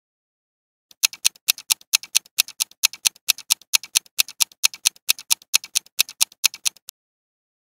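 Clock-ticking countdown timer sound effect: sharp, even ticks about five a second, starting about a second in and stopping abruptly about a second before the end, counting down the time to choose an answer.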